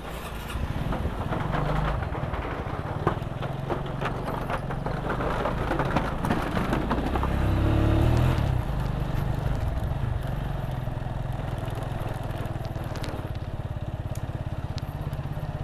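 Small engine running through the river crossing, with clattering knocks over the first half. It swells about eight seconds in, then settles into a steady, even putter.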